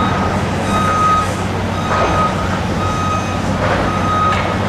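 Backup alarm of a dump truck beeping steadily about once a second, over the low, steady running of a diesel engine.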